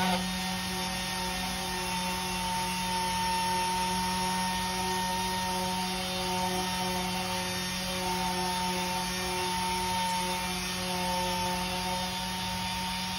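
Air-powered dual-action sander running with a steady whine as it wet sands a clear-coated carbon fiber part with 1500-grit paper.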